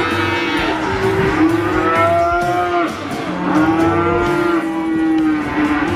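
Cattle mooing: long, drawn-out moos, one after another.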